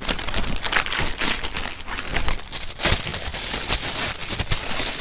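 Plastic packaging crinkling and rustling continuously as a squishy toy is unwrapped from its bag.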